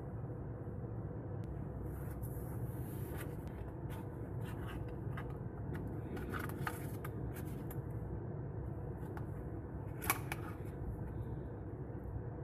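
A rigid cardboard slide-out box and its paper card being handled in unboxing: scattered soft rustles and light taps, then one sharper click about ten seconds in, over a steady low hum.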